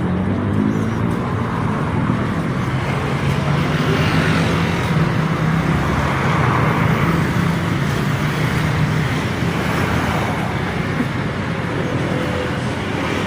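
Street traffic noise: a steady low engine rumble from motor vehicles, with a hiss of passing traffic swelling and fading in the middle.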